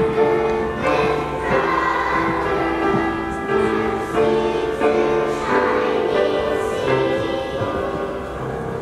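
A choir of young children singing a song together, holding long notes; the singing eases off slightly near the end.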